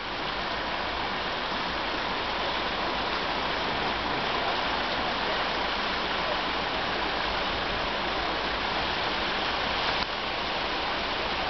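Heavy cloudburst rain and floodwater rushing down a street, a dense steady hiss.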